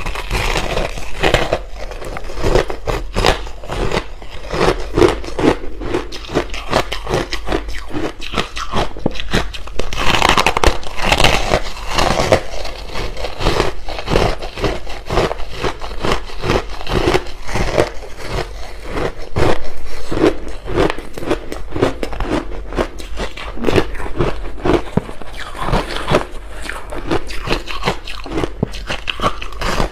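Ice chunks coated in matcha and milk powder being bitten and chewed close to the microphone: a dense, unbroken run of crunches and crackles as the ice breaks between the teeth.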